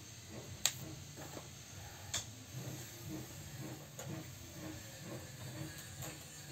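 Quiet room noise with a few isolated sharp clicks, the two clearest about a second and a half apart.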